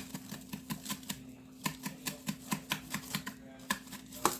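Seasoning shaker being shaken, its contents rattling in a rapid, uneven series of sharp clicks about four or five a second.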